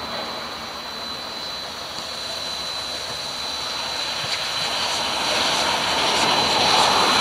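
Steam locomotive Ww 644 approaching with its train, a steady rushing running noise that grows louder over the last couple of seconds, with a thin steady high-pitched tone running through it.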